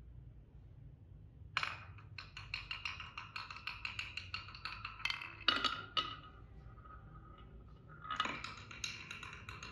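Marbles clattering down a wooden HABA marble run, a quick series of clicks and knocks. The clicking starts about one and a half seconds in, with two louder knocks around the middle, eases off, then picks up again near the end.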